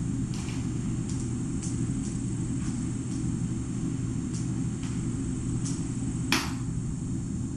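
Steady low background rumble, with faint scattered clicks and one sharper click about six seconds in.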